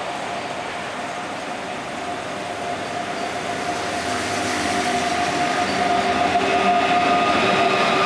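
KTT through train, a red locomotive hauling double-deck coaches, approaching and running through the station without stopping. It grows steadily louder as it reaches the platform, with a steady whine over the running noise.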